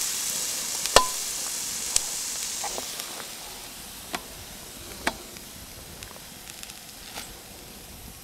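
Slices of side pork sizzling in a hot frying pan; the sizzle fades after about three seconds. Several sharp clicks stand out, about one a second early on and a few more later.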